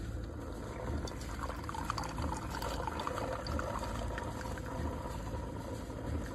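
Keurig K-Slim single-serve coffee maker brewing: liquid streaming and trickling into a cup over the machine's low, pulsing pump hum.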